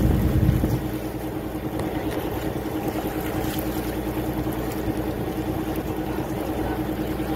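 Tour boat's engine running steadily under way, a low drone with a steady hum. A heavier low rumble in the first second eases to an even level.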